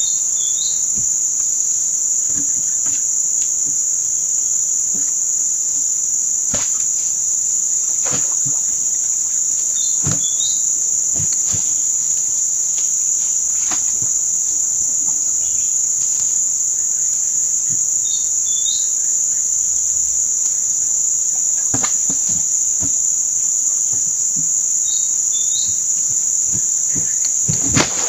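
A steady, high-pitched drone of insects. A short chirping call sounds four times, several seconds apart, and there are a few faint knocks, the loudest near the end.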